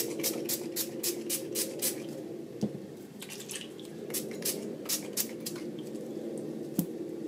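Finger-pump mist bottle of Lindy's colour spray squirted onto a craft mat in quick short pumps: a rapid run of about ten squirts, a pause about two seconds in, a second run of several squirts, and one last squirt near the end.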